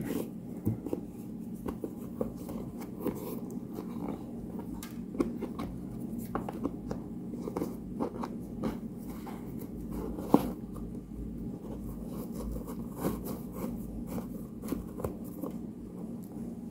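Hands handling a leather shoe and pulling a shoelace around it: a run of small, irregular rubs, scrapes and clicks, with one sharper click about ten seconds in, over a steady low hum.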